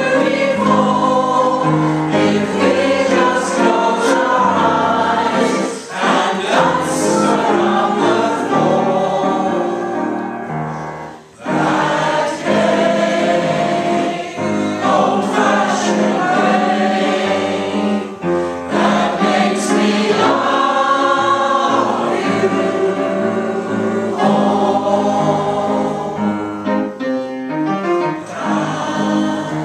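Community choir of older men and women singing together, with a brief break between phrases about eleven seconds in.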